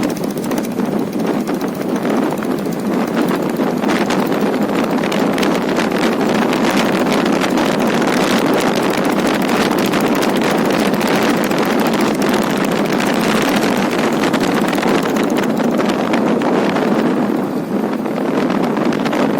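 Royal Enfield Taurus single-cylinder diesel engine running under way on a ride, a steady rapid chugging, with wind on the microphone. The sound eases briefly near the end and then picks up again.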